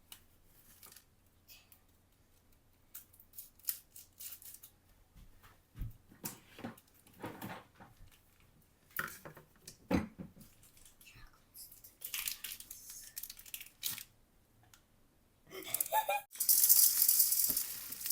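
A chocolate wrapper being cut and torn open, with scattered rustles, clicks and taps, then loud crinkling of the wrapper near the end.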